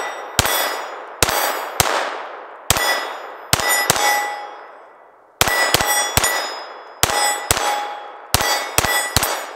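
A KelTec P17 .22 LR pistol fires about fifteen rapid shots in quick strings of two to four. Each crack is followed by the ringing clang of a steel plate target being hit.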